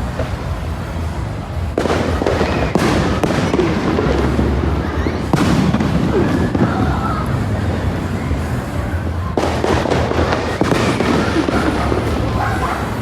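Fireworks bursting and crackling, with dense crackle breaking out suddenly three times, about two, five and nine seconds in, over background music.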